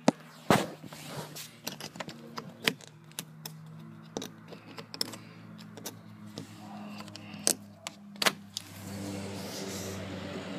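Irregular clicks and knocks from a phone being moved and covered while filming, over a steady low hum. Near the end, a vehicle's noise grows louder.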